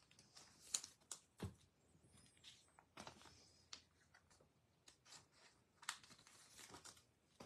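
Faint handling of trading cards: soft rustling and a few sharp clicks as cards are shuffled through and tapped against each other, in an otherwise near-silent room.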